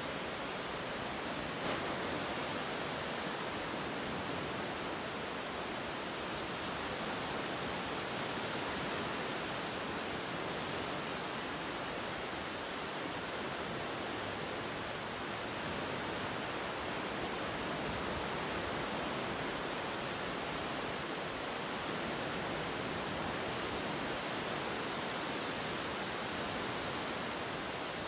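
A steady, even rushing noise that does not change, with no speech or music.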